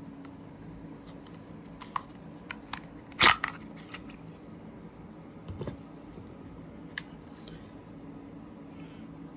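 A pistol and its holster being handled on a tabletop: scattered clicks and knocks, the loudest a sharp knock about three seconds in and a duller thump a couple of seconds later. A low steady hum runs underneath.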